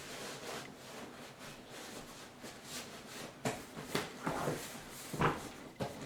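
Hands rubbing and rustling an upholstery seat cover as it is worked over a car seat, with several short knocks in the second half, the loudest about five seconds in.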